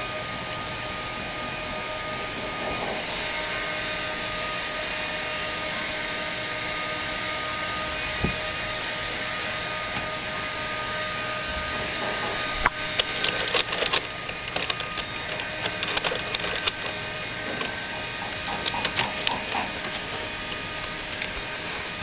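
Steady hum of office machinery. About halfway through come irregular clusters of scratches and clicks as a kitten's claws catch on the edge of a desk drawer.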